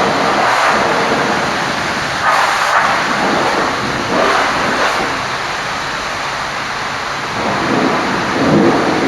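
Water spraying onto a truck at a truck wash, a steady rushing hiss that swells a few times.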